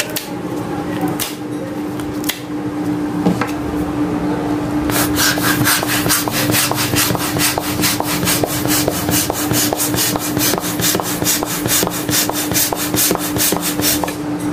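Latex balloon being stretched by hand with a few scattered rubbery snaps. From about five seconds in, it is inflated with quick, regular pumping strokes of air, about four a second, that keep going as it grows. A steady low hum runs underneath.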